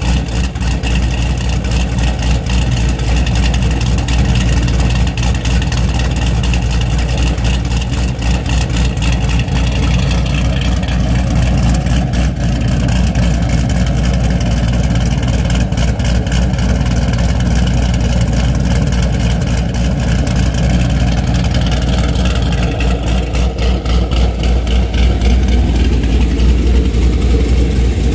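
Chevrolet Camaro 1LE's V8, fitted with an aftermarket camshaft, idling through its quad-tip exhaust with a rhythmic, choppy lope. It gets slightly louder near the end.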